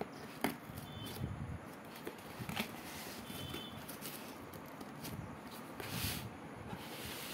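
Cardboard shipping box being handled and turned on a tabletop: a sharp knock near the start, another a couple of seconds later, and a brief scraping swish of the box near the end.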